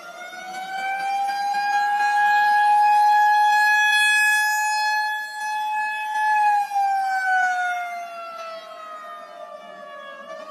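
Outdoor warning siren sounding a wail: the pitch holds high and steady for several seconds, falls slowly, then begins to climb again near the end. A second, slightly lower tone sounds alongside in the middle.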